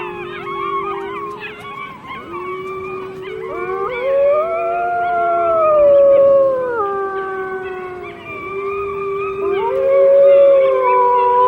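A family of Arctic wolves howling in chorus, several voices overlapping. The first couple of seconds waver quickly, then long howls rise and fall over one another. This is the group howl that rouses the pack to action before the male sets off hunting.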